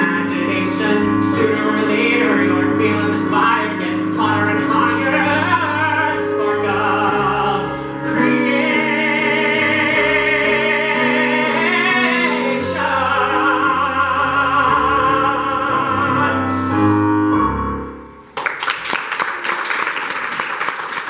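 A man singing a musical-theatre ballad with electronic keyboard accompaniment, holding one long note with vibrato in the middle of the phrase. The song ends about 18 seconds in and the audience breaks into applause.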